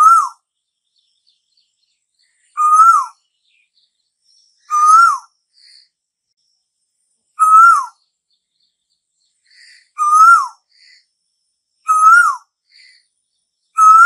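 Asian koel (tu hú) calling: a short, loud whistled note that rises slightly and then drops sharply, repeated about every two and a half seconds, six times, with faint high chirps between the calls.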